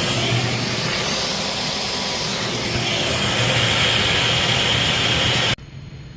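Loud, steady rush of air over a low motor hum, from a motor-driven fan or vacuum, cut off abruptly a little over five seconds in.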